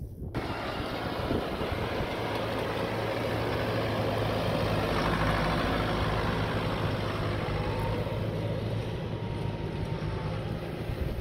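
Farm tractor's diesel engine running under load as it drives, growing louder toward the middle and easing off later.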